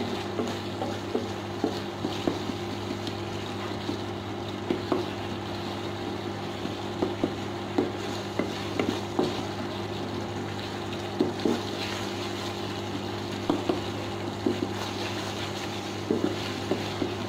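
Wooden spatula stirring and scraping thick, sizzling tomato masala in a stainless steel pot, with irregular soft knocks against the pot. A steady low hum, from the induction cooktop, runs underneath.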